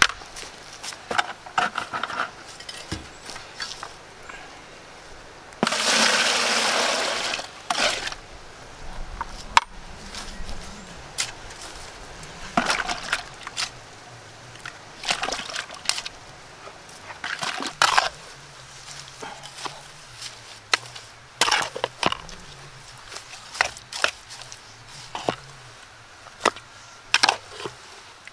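A shovel scraping and digging into loose soil and tipping it into a plastic bucket, wetting and mixing it into mud, in many short scrapes and knocks. About six seconds in, there are two seconds of steady splashing, like water being poured into the bucket.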